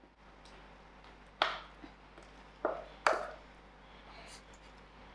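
Wooden spoon scraping thick sweetcorn cake batter out of a glass mixing bowl into a baking tin, with three sharp knocks of spoon against bowl between about one and a half and three seconds in.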